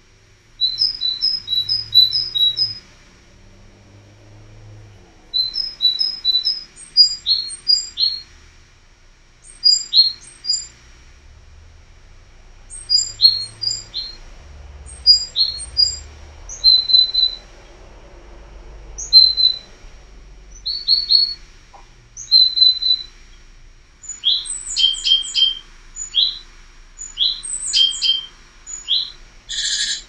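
Small songbirds chirping and singing: short phrases of quickly repeated high two-note calls every few seconds, with faster falling whistles near the end.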